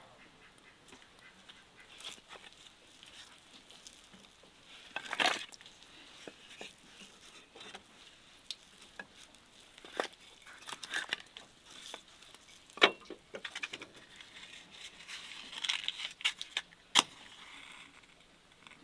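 Split firewood logs knocking and clattering as they are laid into the small iron firebox of a brick smokehouse, in a few sharp knocks with rustling and scuffing between.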